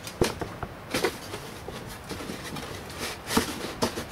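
Packaging and paper manuals being handled: a few sharp clicks and short rustles, about a second in and again a little after three seconds in.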